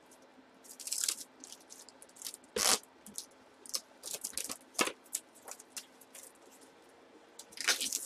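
Clear plastic wrap crinkling and being pulled off its roll and around a batting helmet, in irregular crackly rustles with a few louder ones.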